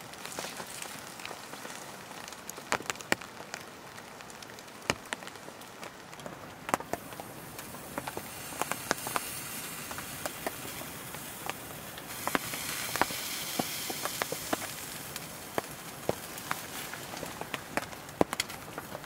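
Steady patter of rain on the tent, with scattered sharp crackles from firewood burning in a small wood stove; the hiss grows louder for a few seconds past the middle.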